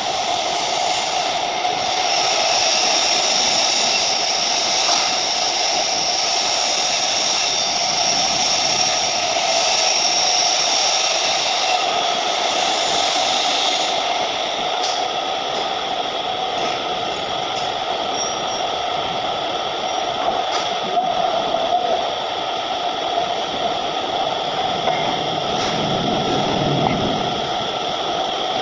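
TIG welding arc on 304 stainless steel, hissing steadily with a faint buzz, with an occasional light click.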